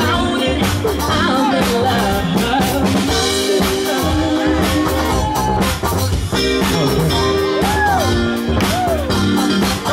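Live dance band playing a song: singers over a drum kit with a steady beat, bass, guitar and keyboards.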